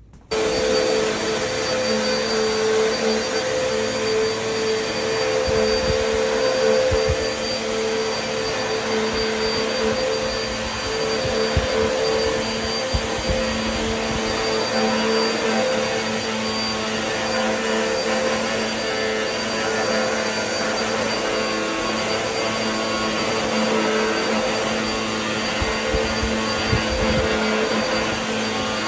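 Vacmaster UC0501 bagless upright vacuum cleaner switching on just after the start and then running steadily: a motor hum with a high whine, and a few low knocks as it is worked over the floor.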